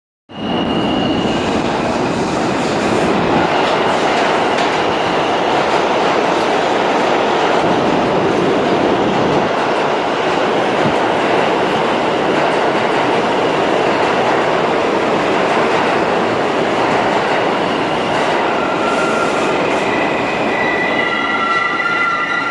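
R46 New York City subway train running at speed: a steady, loud rumble and clatter of steel wheels on rail. A thin high squeal comes and goes, and near the end several steady high-pitched tones set in.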